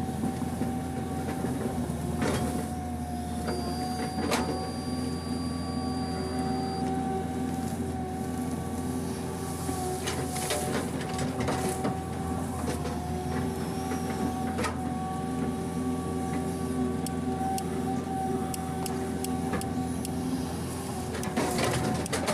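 PC200 hydraulic excavator's diesel engine running steadily, heard from inside the cab, with a constant whine over it. Several sharp clunks and knocks are heard as the bucket digs out a ditch in wet peat.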